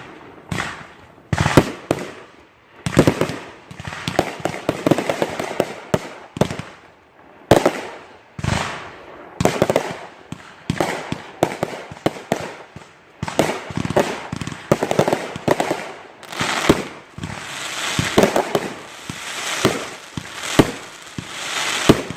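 Consumer fireworks going off in quick succession: sharp bangs one after another, thickening into a denser run of bangs and crackle in the second half.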